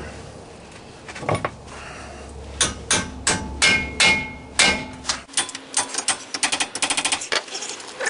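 Hammer striking steel at a 2002 Camaro's rear axle housing, working at an axle seal that is glued in and will not come out. Two blows about a second in, then six heavy ringing blows about half a second apart, then a quick run of lighter, faster taps near the end.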